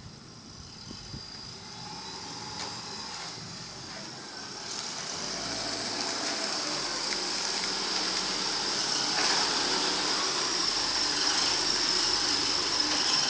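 A Subaru Outback wagon's engine and tyres approaching slowly through snow and up the driveway, growing steadily louder as the car pulls in close. A high steady hiss strengthens from about five seconds in.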